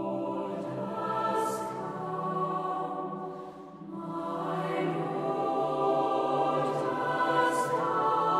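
Choir singing a slow sacred piece in long held notes. The singing dips briefly about three and a half seconds in, then swells louder.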